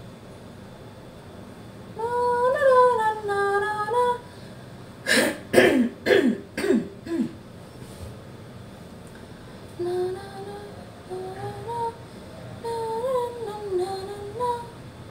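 A woman humming a tune in short phrases, broken about five seconds in by a run of about five short coughs, then humming again.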